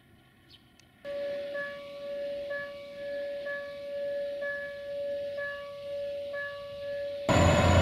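Level crossing warning signal sounding: a steady tone with two higher tones alternating about once a second. Near the end it is suddenly cut off by a loud, steady rumble.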